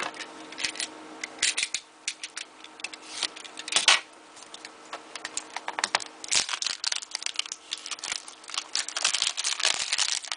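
A trading-card retail box being opened by hand: a run of clicks and crackles from packaging and cardboard, becoming denser crinkling in the second half.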